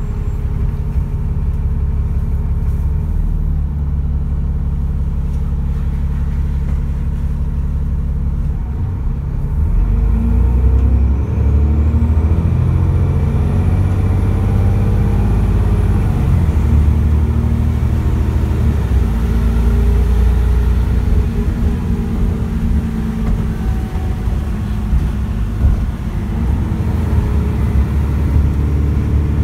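Dennis Trident double-decker bus's diesel engine heard from inside the passenger saloon, running steadily at first, then louder from about a third of the way in as the bus pulls on under load.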